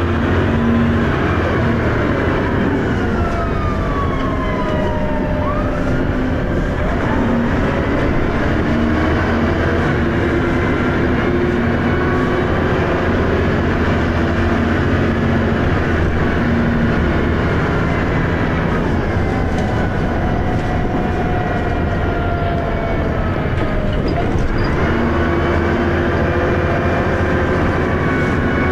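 Dennis Arrow double-decker bus engine and ZF automatic gearbox under way, running loud and steady. Its whine falls in pitch, then jumps up abruptly twice, about seven seconds in and again near the end, as the gearbox changes down.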